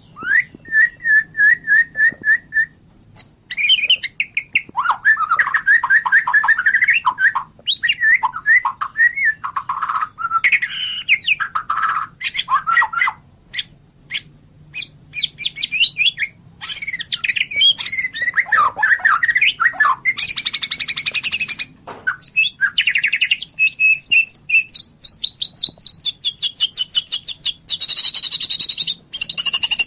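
White-rumped shama (murai batu) singing a loud, varied song: rapid runs of repeated notes, trills and whistled glides, broken by short pauses.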